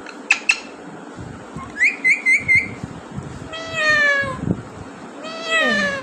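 Pet green parakeet calling: two sharp clicks, a quick run of four short high chirps, then two longer drawn-out calls that slide down in pitch.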